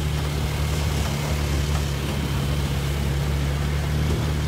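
Engine of the truck carrying the camera running steadily with a low, even hum, heard from on board.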